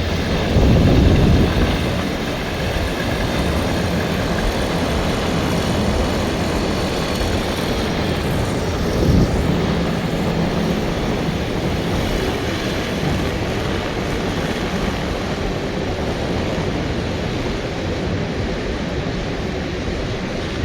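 Small propeller-driven microlight plane's engine droning, mixed into heavy wind noise on the microphone, with louder gusts about a second in and again around nine seconds in.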